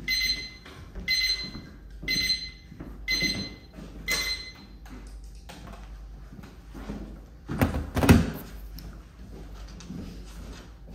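An electronic timer alarm beeping about once a second, stopping after about four seconds. Near the end, two heavy thunks about half a second apart.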